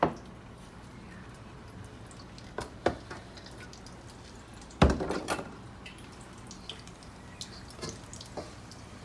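Hot oil crackling and spitting in a wok as samosas deep-fry, a scatter of small pops over a steady low hiss, with a few knocks of handling; the loudest knock comes about five seconds in.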